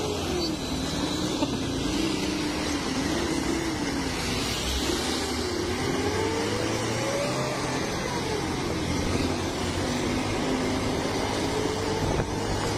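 Large buses' diesel engines running hard as one bus overtakes the other, the engine pitch rising and falling continuously, over steady road and wind noise.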